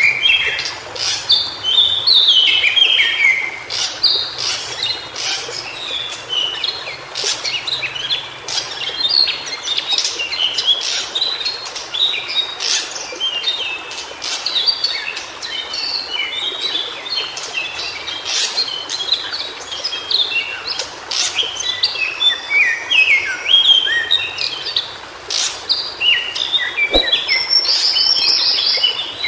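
White-browed shortwing singing: a continuous run of quick, jumbled phrases of short sliding notes, with sharp clicks mixed in.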